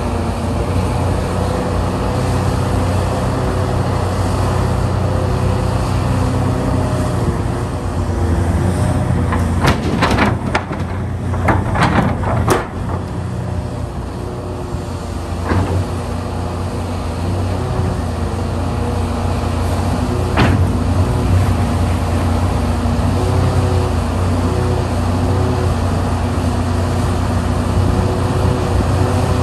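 Hitachi Zaxis 670 excavator's diesel engine and hydraulics running steadily under load while it digs, with whine tones that shift as the arm works. A cluster of sharp knocks and clatters of rock against the steel bucket comes about ten to thirteen seconds in, and there are two single knocks later.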